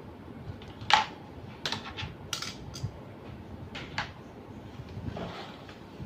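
A handful of sharp clicks and clinks of small metal and plastic parts being handled while a laser printer is taken apart to remove its motor, the loudest about a second in and a last pair near four seconds in.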